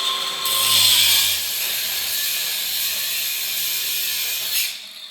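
A power tool cutting through expanded metal sheet: a loud, steady, hissing cut that stops sharply near the end and then trails away.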